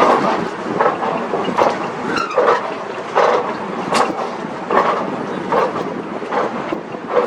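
Escalator machinery running up close: a steady rumble with the steps passing in a regular clunk a little more than once a second. A short rising squeak comes about two seconds in.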